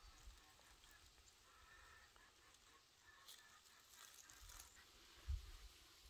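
Near silence outdoors: faint ambience with a few faint, thin calls in the first half and a brief low thump near the end.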